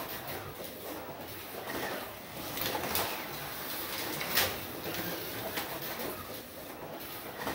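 Slot.it Jaguar XJR10 slot car running laps on a plastic Carrera track: the small electric motor whirs and the chassis scrapes along the track surface, swelling as the car passes, with a sharp clack about four and a half seconds in. The rubbing comes from the car riding on the track, which the owner thinks is because the Carrera guide stands a little proud of the track.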